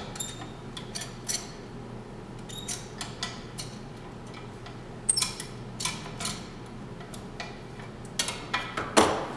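Hand-handling clatter on a switched-off drill press: a wooden block and a metal clamp being moved and set on the cast table, making scattered light clicks, clinks and knocks, with a louder knock near the end.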